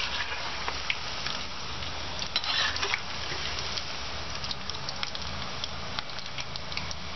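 Fenugreek-and-gram-flour dumplings deep-frying in hot oil in a metal kadhai: a steady sizzle with many small crackles. A metal ladle stirs and turns them through the oil, briefly louder about two and a half seconds in.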